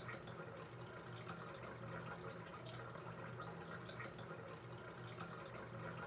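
Faint steady trickle of water with scattered small drip-like ticks, over a low steady hum.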